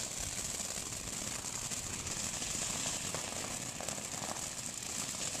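Ground firework fountain spraying sparks: a steady high hiss peppered with rapid crackling.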